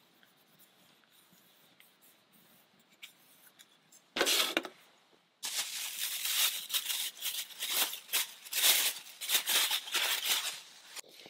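A short rip about four seconds in, then clear plastic wrapping crinkling and rustling as it is handled, for several seconds.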